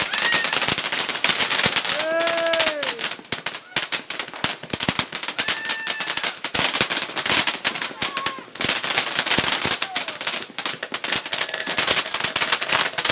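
Fountain firework spraying sparks with a dense, rapid crackle of small pops. A short cry from a voice comes about two seconds in.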